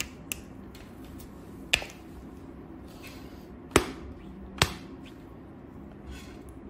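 Sharp plastic clicks and knocks as a white plastic end cap is twisted and pushed onto a plastic tube, with faint rustling of handling between. About five clicks, the two loudest about four seconds in, less than a second apart, as the palm presses the cap home.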